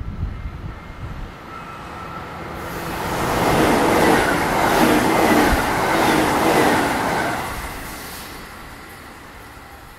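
Electric multiple-unit commuter train passing at speed along the platform. It builds up over a couple of seconds, is loudest in the middle with a rapid run of wheel clatter, then fades away.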